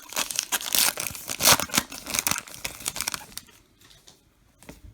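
A baseball card pack's wrapper being torn open and crinkled, a dense crackle that stops about three and a half seconds in.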